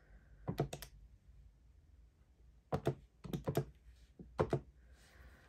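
Keys being tapped on a keypad in three short runs of clicks while a calculation is entered.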